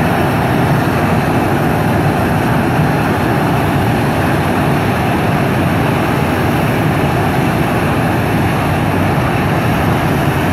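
CFM56-7 turbofan engines of a Boeing 737-900ER running at taxi power as the jet rolls by: a loud, steady jet rumble and roar.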